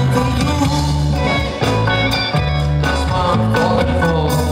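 Live pop music: male vocals sung into handheld microphones over a band with sustained bass notes.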